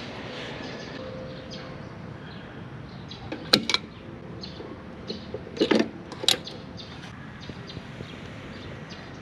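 Several sharp taps over a steady background hiss: two about three and a half seconds in, then a louder group of three about two seconds later.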